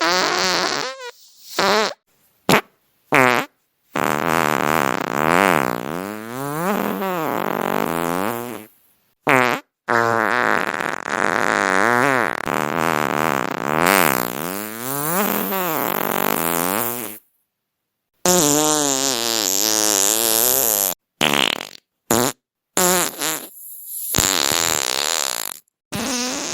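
A run of fart sound effects played one after another with short silent gaps: several brief blasts and a few long ones lasting several seconds, their pitch wavering up and down.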